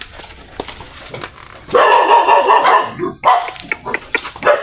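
A dog barking and yelping: a loud run of barks about two seconds in, then short sharp yips.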